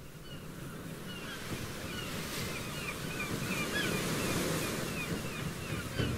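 Film soundtrack ambience: a wash of surf-like noise swelling steadily louder, with many short bird calls chirping over it.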